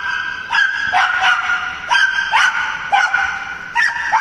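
A dog barking over and over as it runs an agility course, about two sharp barks a second, each sweeping up in pitch at its start.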